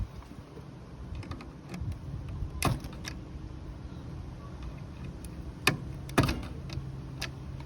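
A few sharp clicks and taps from hands working on the unit, the loudest about two and a half seconds in and twice around six seconds in, over a low steady hum.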